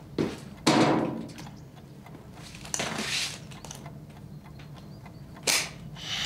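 A few handling knocks over a low steady room hum: a loud thump about a second in, a softer rustling scrape around three seconds, and a short sharp click near the end.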